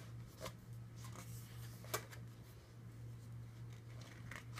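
Glossy pages of a thick printed brochure being handled and turned by hand: faint paper rustles and a few light taps, the sharpest about two seconds in, over a steady low hum.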